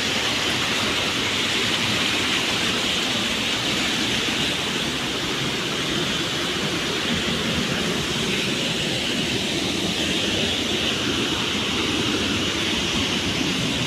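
Loud, steady rush of a waterfall in full flow: an even wash of falling water with no break or change.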